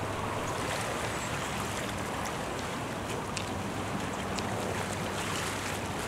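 Steady shoreline ambience: sea water washing against rocks and a seawall, with some wind and a faint low hum underneath.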